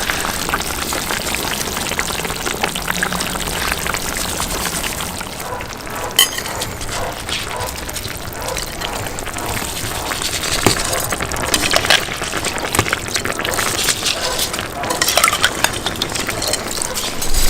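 Lamb pilaf ingredients sizzling as they fry in a pot over a campfire, with a utensil stirring and clinking against the metal. The sizzle is steady, with scattered clicks and one sharper clink about six seconds in.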